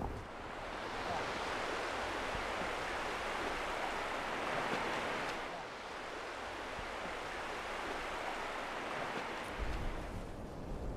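Shallow sea water washing and splashing in a steady rush, as surf on a beach. Near the end it gives way to a lower rumble of wind.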